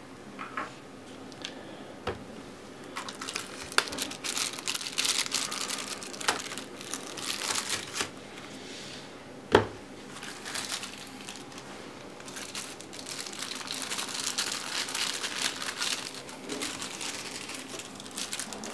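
Thin plastic wrapping crinkling as it is handled and peeled off a smartphone, in two long stretches. A single sharp knock comes about halfway through, as something is set down on the desk.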